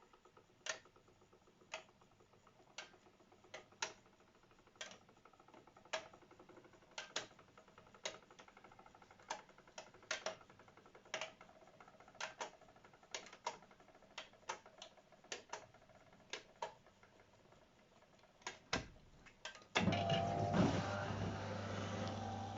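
AEG Öko-Lavamat 693 washing machine on a 95 °C boil wash: irregular sharp ticks and clicks, roughly one a second, then near the end its motor starts with a sudden loud, steady hum.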